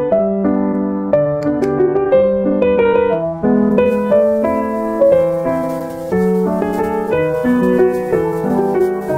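Background piano music: a run of single notes over lower accompanying notes, changing every half second or so.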